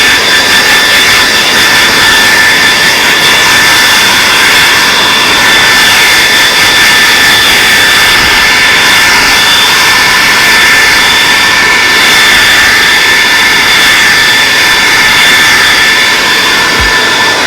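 TRESemmé hair dryer running steadily: a loud, even rush of air with a steady high motor whine.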